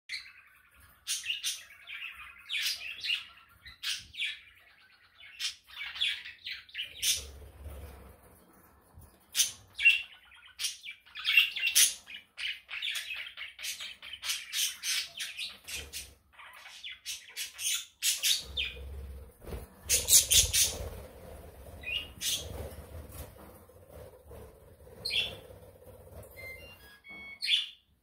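A flock of budgerigars chirping and warbling, with many sharp, loud chirps.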